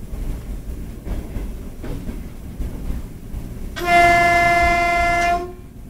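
ED4M electric train's horn sounded in one steady blast of about a second and a half, past the middle, as a warning to a person walking by the track ahead. Under it, the train's running rumble.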